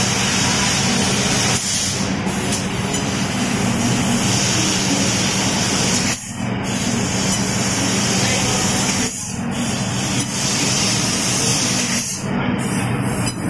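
Fiber laser cutting machine cutting sheet steel: a loud, steady hiss of the cutting gas jet over a steady machine hum, breaking off briefly four times.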